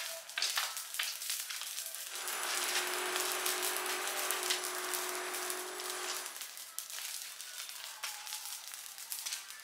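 A trash fire crackling and popping. About two seconds in, a louder steady hiss with a low hum-like tone swells in, then fades away a few seconds later.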